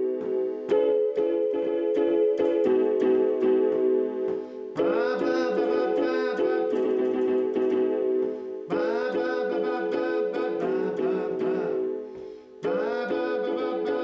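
Electric keyboard music: held chords with notes struck over them. A higher part enters about five seconds in and twice more, roughly four seconds apart, its pitch swooping upward each time.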